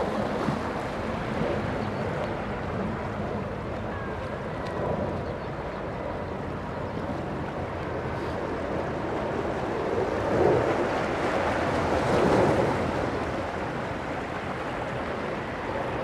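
Small waves washing in and out over low rocks at the shoreline, a steady wash of surf that swells louder twice in the second half.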